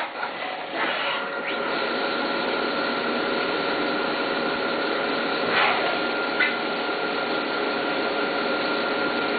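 CNC milling machine's end mill cutting aluminum under coolant spray: a steady hiss of cutting and spraying coolant with a thin, steady high tone from the cut that sets in about a second in.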